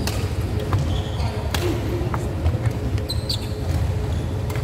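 Badminton rally sounds: a few sharp racket strikes on the shuttlecock and short high shoe squeaks on the court floor, over a steady low rumble.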